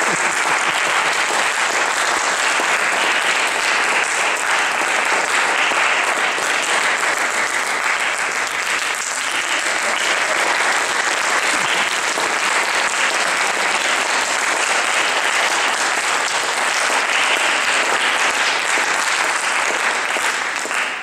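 Audience applauding steadily: dense, even clapping that falls away sharply near the end.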